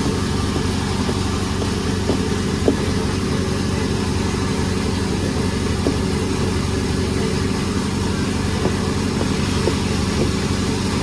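Sawmill machinery running steadily, its engine holding a constant even pitch, with a few short knocks, the loudest about three seconds in.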